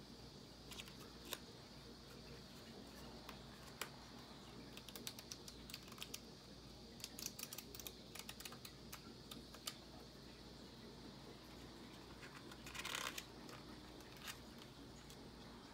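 Quiet, scattered clicks and ticks of fingers handling the stiff pages of a hardcover book, coming thickest a few seconds in, and a page turned over in a short swish about thirteen seconds in.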